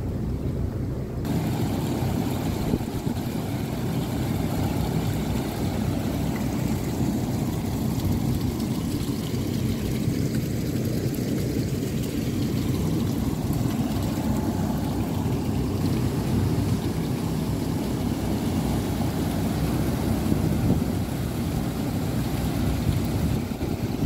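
600-ton cooling tower running: a steady, deep noise of its fans and the water falling through it, which grows fuller about a second in.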